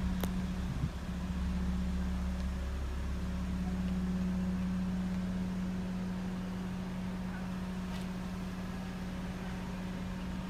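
A steady low mechanical hum with a constant pitch, like a machine or engine running, with a faint tick or two.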